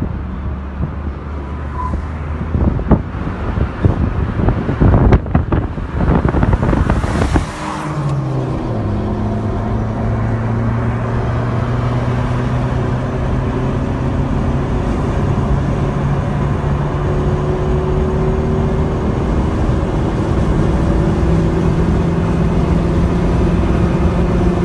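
A car engine and road noise heard from inside a moving car at highway speed. For the first several seconds wind buffets the microphone; about eight seconds in the engine note drops, then holds steady and climbs slowly as the car accelerates.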